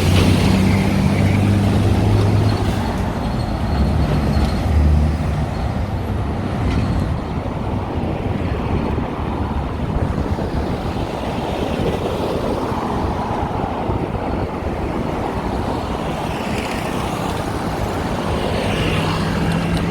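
Steady road traffic, with motor vehicles passing and a low engine hum from a nearby vehicle for the first few seconds.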